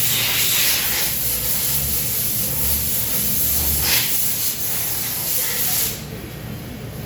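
Steady spraying hiss of pressurised air or spray, cutting off sharply about six seconds in, over a low background rumble.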